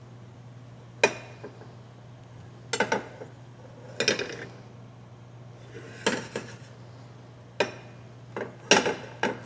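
Metal fork scraping and clinking against a de Buyer carbon steel egg pan as the setting omelette is worked, in short sharp bursts every second or two, over a steady low hum.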